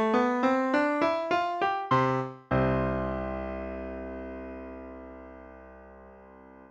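Piano music: a run of evenly spaced notes, about three or four a second, then after a brief break a final chord struck about two and a half seconds in. The chord rings and fades, then cuts off suddenly at the end, the close of the piece.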